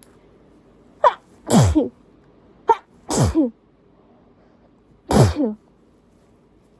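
A fit of three strong voiced sneezes, each falling in pitch; the first two follow a sharp catch of breath, and they come from a nose that is itching badly.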